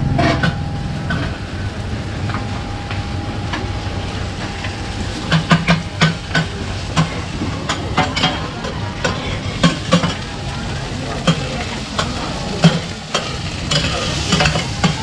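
Metal spatula and ladle clanking and scraping in a large wok as radish cake is stir-fried, over a frying sizzle. The clanks come in irregular clusters, starting about a third of the way in.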